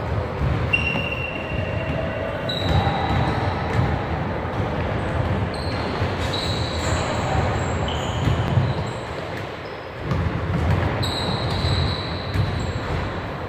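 Basketballs bouncing on a hardwood gym floor with repeated thumps, and sneakers giving short, high squeaks at different pitches, all through a large indoor gym.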